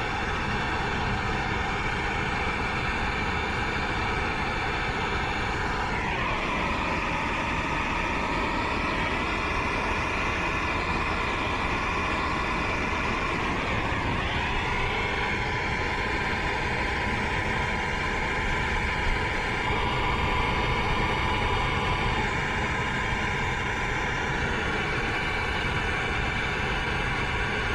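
Steady rushing roar of a brazing torch flame working on reversing-valve line joints, with faint whistling tones that shift in pitch a few times.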